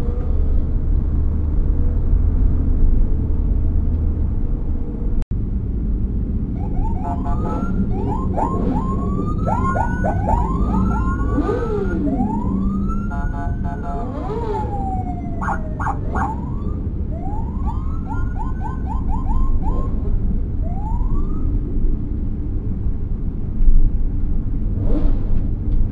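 Several emergency sirens overlapping in short rising whoops for about fifteen seconds in the middle, over steady engine and road rumble heard from inside a vehicle cabin. A brief knock comes near the end.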